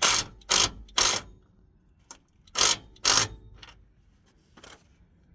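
Five loud metallic clanks, three in quick succession and then two more a moment later, from tools or parts knocked against metal during a steering rack job under a pickup truck.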